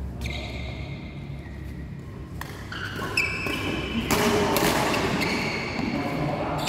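Badminton rally: rackets strike the shuttlecock several times, with players' footsteps thudding and shoes squeaking on the court floor in a large hall. It gets busier from about halfway through.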